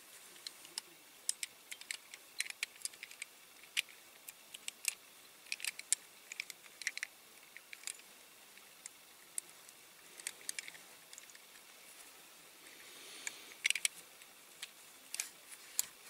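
Scattered light clicks and taps of metal on metal as a Siku Magirus Deutz die-cast concrete mixer's chassis is handled and worked at with a small metal tool, with a short scrape a little after the middle.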